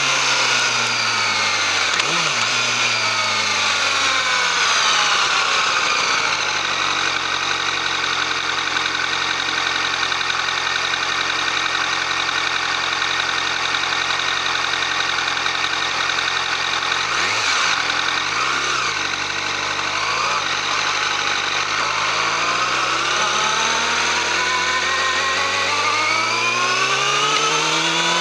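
Yamaha YZF-R6's inline-four engine running through its stock exhaust: its pitch falls over the first several seconds, holds steady for a long stretch, then rises steadily near the end.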